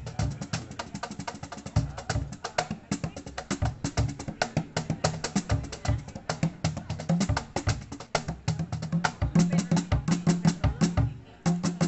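A wooden cajón drum kit played by hand in a fast, dense groove: quick slaps on a box cajón and a wooden side drum over recurring low, deep bass strokes. It breaks off briefly near the end, then comes back in.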